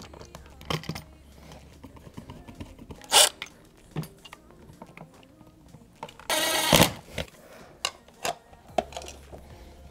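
A Ryobi cordless impact driver runs in one short burst of under a second, driving a screw, a little past the middle. Around it come clicks, taps and one sharp snap from plastic electrical box parts and a receptacle being handled.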